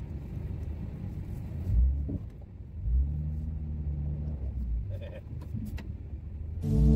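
Pickup truck engine rumbling at low speed, heard from inside the cab, with two dull low thumps about two and three seconds in. Music starts right at the end.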